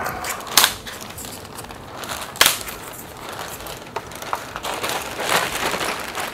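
Clear plastic bag crinkling and rustling as it is handled and pulled away, with sharper crackles about half a second and two and a half seconds in.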